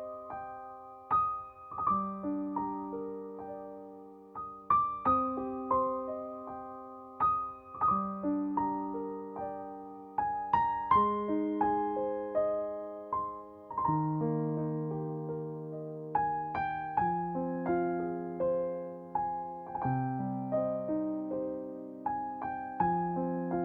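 Background piano music: a slow, gentle melody of struck notes over held lower notes.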